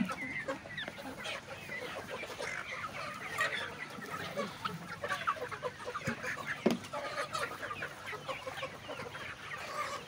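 A large flock of Kadaknath chickens clucking and chirping continuously, many birds at once, with one louder knock about two-thirds of the way through.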